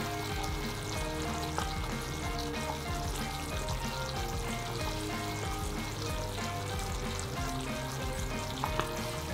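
Mapo sauce of ground pork and garlic chives simmering and sizzling in a frying pan, with a steady bubbling hiss. Soft background music plays over it.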